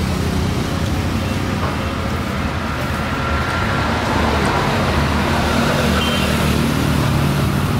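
Road traffic noise: a steady low engine drone from vehicles running on the road.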